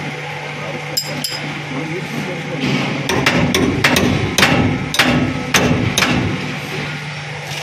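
Hand hammer striking the steel leaf-spring shackle and spring eye of a truck, metal on metal with a short ring: two blows about a second in, then a steady run of blows about two a second from about three seconds in. The work is refitting the rear leaf-spring mounting with a new brass bush.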